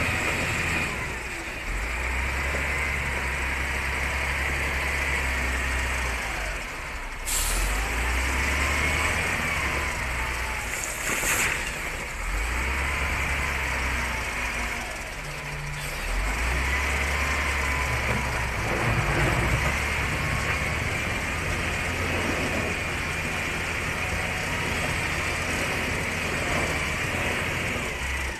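A loaded dump truck's diesel engine idling steadily. There is one sharp knock about seven seconds in, and a brief hiss of released air a few seconds later.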